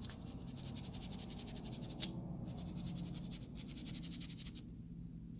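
Fast, rhythmic scrubbing at a smartphone's charging port as it is cleaned, with a single sharp click about two seconds in.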